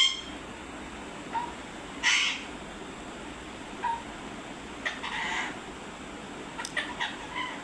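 Pet parrot calling: a string of short sharp squawks and chirps, a couple of them harsher and longer, with a quick run of chirps near the end.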